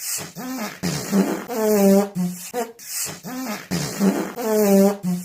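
Comic fart sound effects: a short sequence of pitched, wavering fart noises with hissy puffs, repeating about every three seconds.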